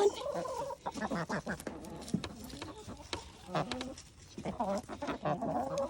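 A flock of chickens clucking and squawking in many quick, short calls as they crowd in on treats, with scattered short clicks among the calls.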